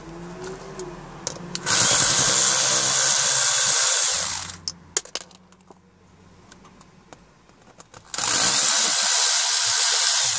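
Power drill running in two bursts of about two and a half seconds each, several seconds apart, on the two mounting screws of a centre-console clasp. Light clicks and ticks fall between the bursts.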